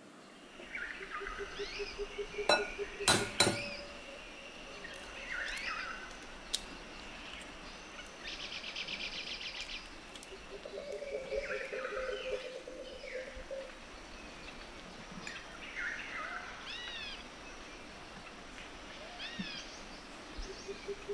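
Eggshells knocked against the rim of a glass bowl to crack them, a few sharp knocks about three seconds in and another a few seconds later, with small birds chirping and trilling throughout. A low pulsing sound comes and goes three times.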